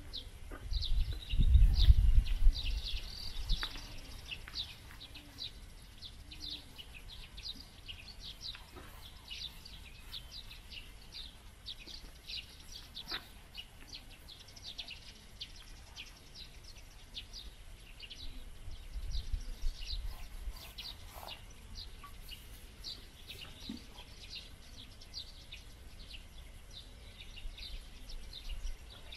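Many birds chirping in quick, short, high calls throughout, with brief low rumbles about a second in and again around twenty seconds in.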